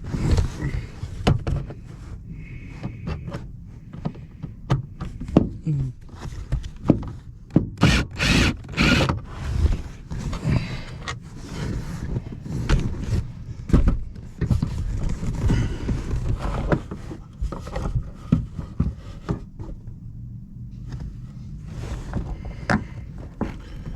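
Irregular knocks, clicks and scraping of hands working at a car's third brake light while removing it, over a steady low rumble, with a cluster of louder scrapes about eight seconds in.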